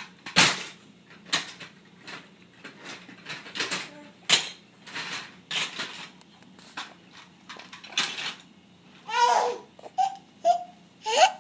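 A baby laughing and breathing in short, breathy bursts, then letting out several loud, high, gliding squeals near the end.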